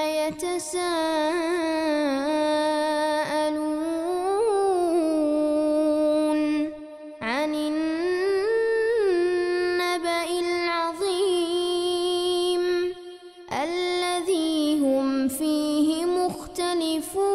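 Music: a woman's voice singing a slow melody with long held, wavering and ornamented notes, the phrases breaking off briefly about seven and thirteen seconds in.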